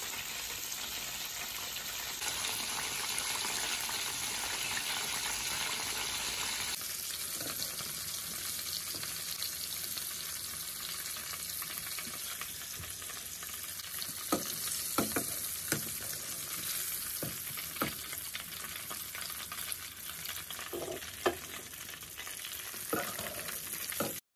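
Battered chicken pieces sizzling in hot oil in a frying pan: a steady hiss of frying, with a few sharp clicks scattered through the second half.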